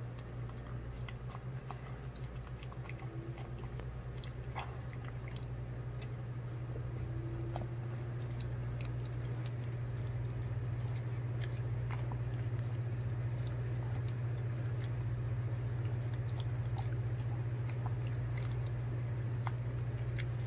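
An old greyhound eating soft, minced wet food from a bowl: wet chewing with many small clicks. Under it runs a steady low hum, the loudest sound, which grows a little louder over the first half.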